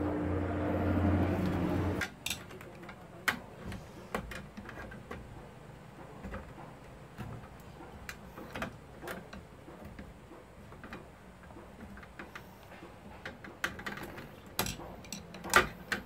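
Background music for about the first two seconds, then scattered light clicks and taps of a screwdriver and wires being worked into an electric sub-meter's terminals, with a sharper click near the end.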